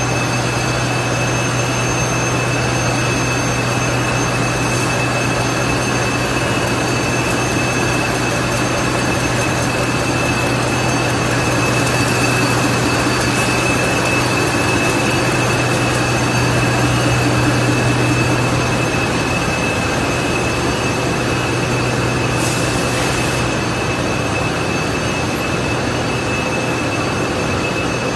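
Disposable baby diaper production machine running: a loud, steady industrial din with a low hum and two high, steady whines over it.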